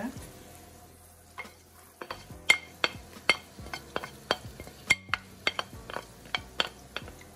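Wooden spoon scraping and tapping minced garlic off a plate into a stainless steel pot of onions softening in butter: a run of sharp, irregular clicks and knocks, about two or three a second, starting a little over a second in. A faint sizzle sits underneath.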